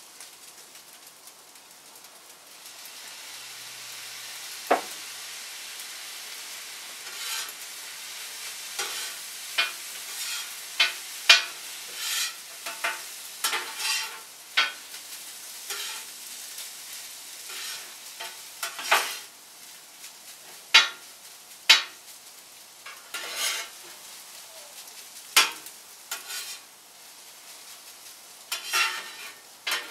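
Fried rice sizzling as it fries, with a spatula clacking and scraping against the cooking surface at irregular intervals as it is stirred and turned.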